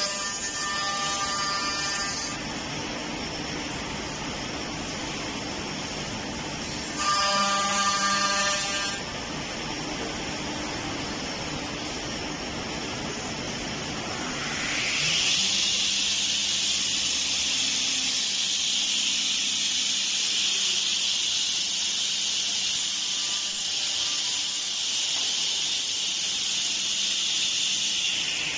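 CNC tenoning and mortising machine at work: two short buzzing bursts from its motors, then a spindle winding up in pitch about halfway through and running on at a steady high whine with a hiss.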